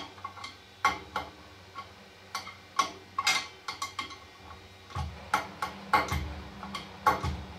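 Irregular sharp metallic clicks and clinks of a hand tool working the fastener at the hub of a vintage Maytag dryer's drum pulley, with a few duller knocks in the second half.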